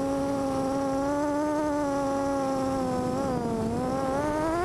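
FPV quadcopter's motors and propellers whining steadily as it flies. The pitch sags about three and a half seconds in as the throttle eases off, then climbs again near the end as power is added.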